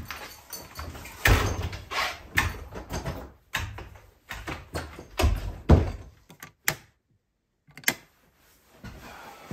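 A cabin's wooden door being opened and shut, with a series of knocks, thumps and footsteps as someone comes in and moves about on the floor. The sound drops out completely for a moment about seven seconds in.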